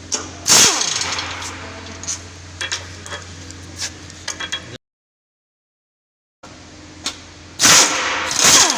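Metal clinks and tool noises from work on a car's steering rack assembly being unbolted and removed, over a steady low hum. There are two louder, longer noisy stretches, one about half a second in and one near the end. In the middle the sound drops out to complete silence for about a second and a half.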